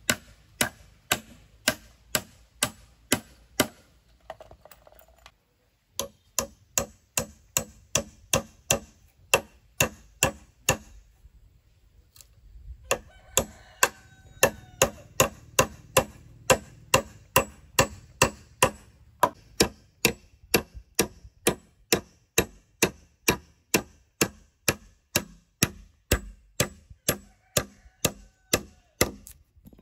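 Sharp knocks in a fast, even rhythm of about two to three strikes a second, in long runs broken by two short pauses, about four and eleven seconds in.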